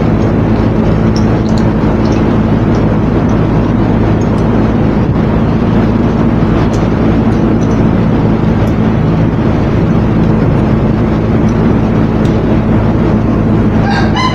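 Steady loud machine drone with a low hum, broken by a few faint clicks. A rooster starts crowing right at the end.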